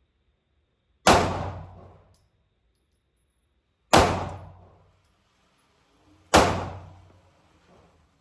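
Three pistol shots, spaced a few seconds apart, each a sharp crack with a reverberant tail echoing off the walls of an indoor range.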